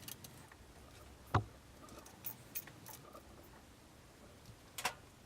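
Scattered clicks and knocks of hand-tightening the hose clamps on a sump pump check valve with a hand tool: a few light ticks, a sharper knock about a second and a half in and another near the end.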